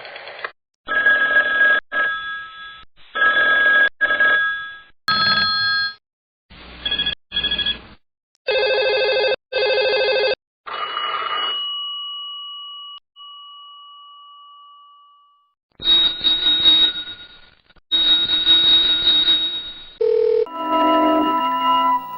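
A series of separate telephone sound effects with short gaps between them: repeated bursts of phone ringing, a long steady tone that fades away over about four seconds midway, and a short electronic ringtone melody near the end.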